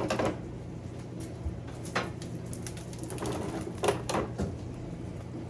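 Plastic water bottles and food containers knocking and rustling as they are handled and set into refrigerator shelves and door bins: a few separate clunks with a burst of handling about two-thirds of the way through, over a steady low hum.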